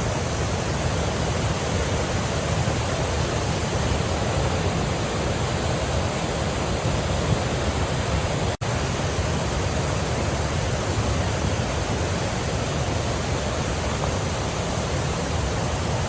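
Floodwater rushing in a steady, loud roar, cut off for a split second a little past halfway before the same rushing resumes.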